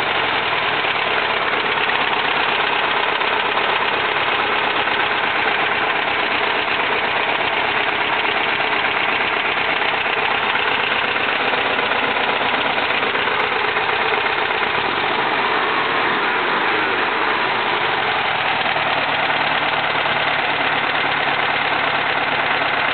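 1971 VW Type 3's air-cooled flat-four engine idling steadily while misfiring, which the owner takes for running on only two cylinders (cylinders 2 and 4). The engine speed dips briefly about two-thirds of the way through and recovers.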